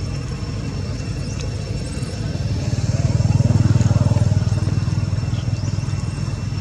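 Engine of a passing motor vehicle: a low pulsing rumble that grows louder toward the middle and fades again.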